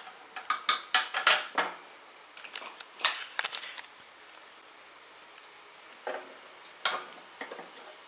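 Sharp metal clinks and taps of a box-end wrench, nut and steel pulley bracket being handled on a steel mower deck, in three short clusters with pauses between.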